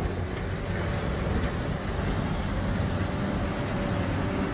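Wheel loader fitted with a snowplow blade, its engine running steadily as the blade pushes snow, with an even noise over the engine.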